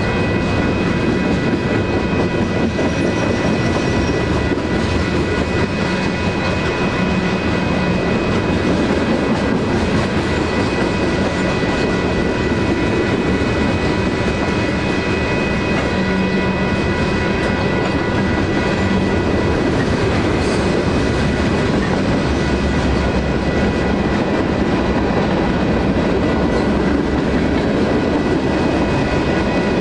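A Union Pacific manifest freight train's cars rolling steadily through a grade crossing, with continuous wheel-on-rail noise. Over it the crossing's two electronic bells, a WCH Type 1.5 e-bell and an NEG e-bell, ring without a break.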